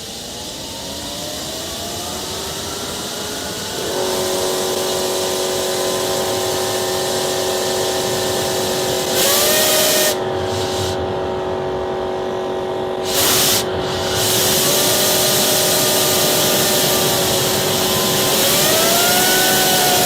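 Home-built propane turbojet engine spooling up: a turbine whine rises over the first few seconds, then runs steady over a loud rush of air, stepping higher in pitch a few times. Two short, louder blasts of hiss come near the middle.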